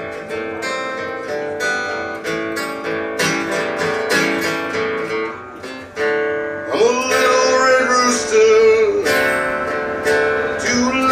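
A band playing live blues: acoustic guitar strums chords, and about seven seconds in a held melody line joins with sliding notes.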